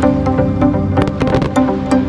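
Electronic music plays, with sharp cracks scattered irregularly through it.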